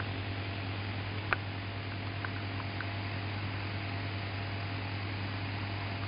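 Small DC motor running steadily, spinning a POV clock's circuit-board arm, a low hum under an even hiss. A single sharp click about a second in, then a few faint ticks.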